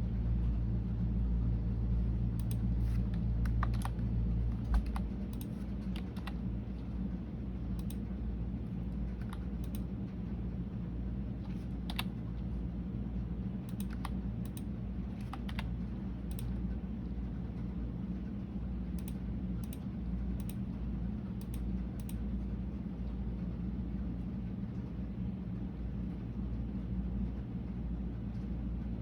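Typing on a computer keyboard: keystrokes clicking in irregular bunches with short pauses between, over a steady low hum. There is one louder thump about five seconds in.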